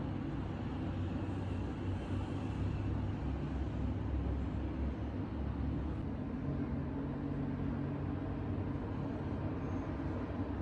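Steady low rumble of a vehicle running, with no sudden events.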